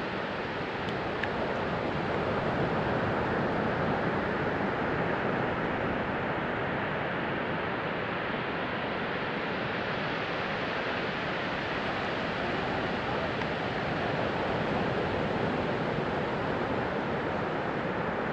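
Sea surf washing onto a beach: a steady rush of waves that swells and eases slowly.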